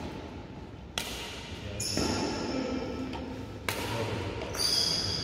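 Badminton racket striking a shuttlecock during a rally: two sharp hits, one about a second in and another near the four-second mark.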